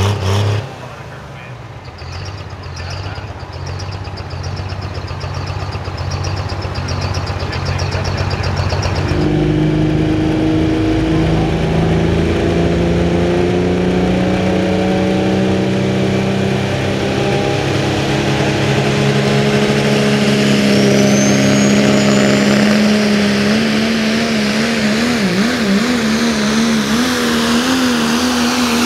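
Pro Stock diesel pulling truck's turbocharged diesel engine coming up from low revs to a loud, steady high rev about nine seconds in. Its pitch wavers up and down near the end as the truck pulls the sled.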